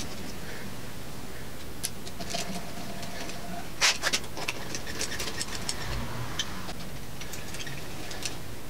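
A hand speed wrench with a socket spinning in the valve cover bolts of a 5.3L LS V8: scattered light metallic clicks and ticks over a steady background hiss.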